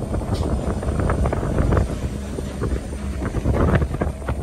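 Pressurised air blowing off through a vacuum tanker's discharge hose as the tank's pressure bleeds down: a steady low rush with irregular crackling, mixed with wind buffeting the microphone.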